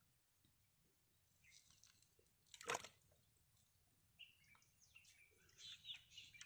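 Near silence broken by a few faint, high bird chirps and one short, sharp crackle a little under three seconds in.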